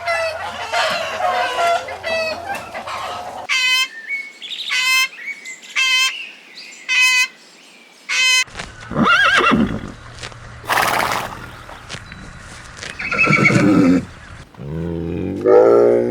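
Several different farm animal calls in turn: a run of about five short calls, roughly one a second, then longer calls that rise and fall in pitch with a noisy burst between them, and a deep call near the end.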